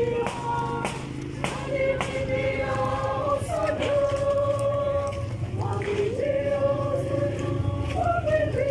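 A group of people singing a hymn together as they walk, their voices holding long notes and sliding from one to the next.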